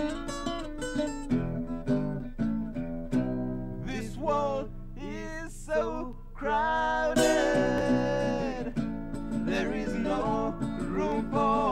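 Acoustic guitar being strummed and picked on a song demo. A man's voice comes in about four seconds in, singing long held notes without clear words.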